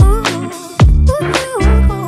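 Background music with a steady beat, a sliding bass and a wavering melody.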